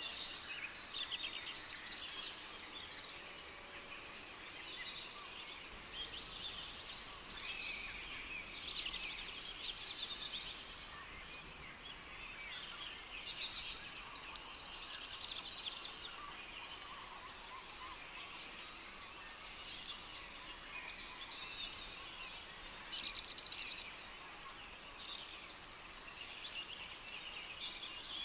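Cricket chirping in a steady, high-pitched pulse of about four chirps a second, breaking off for a second or so near the middle, with scattered bird calls throughout: tropical rainforest ambience.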